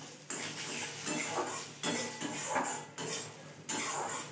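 Metal spatula scraping and stirring against the bottom of a metal kadai, with repeated strokes in quick succession, about one every two-thirds of a second, while crumbled lentil bori and green chilli fry in a little oil.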